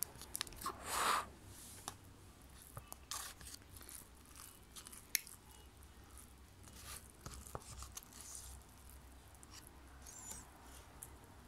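A child chewing a mouthful of noodles close to the phone's microphone: faint mouth sounds and small clicks, a little louder about a second in.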